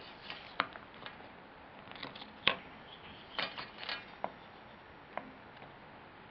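Light, irregular clicks and taps of animal puzzle pieces being handled and fitted, a few knocks scattered over several seconds.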